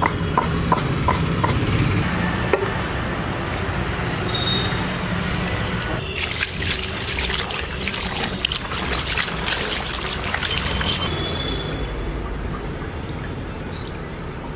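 A few sharp knife taps on a wooden chopping block near the start, then water splashing and trickling as raw chicken pieces are washed by hand in a perforated aluminium pot. The splashing is busiest in the middle.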